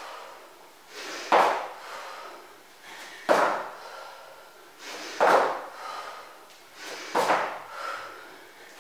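Feet landing on the floor from repeated snowboarder jumps, in which she jumps and switches sides: four thuds about two seconds apart, each with a short scuffle just before it.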